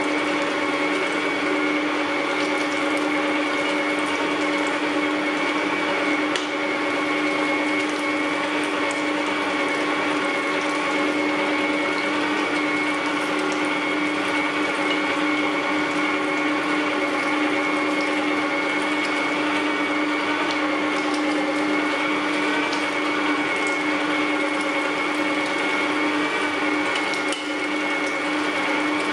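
Electric meat grinder running steadily under load, its motor giving a constant hum while meat is forced through the cutting plate and comes out as mince.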